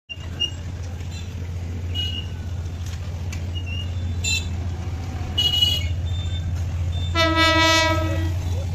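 Approaching train's locomotive horn sounding one long note about seven seconds in, lasting about a second and the loudest sound, over a steady low rumble. Short high-pitched beeps come and go before it.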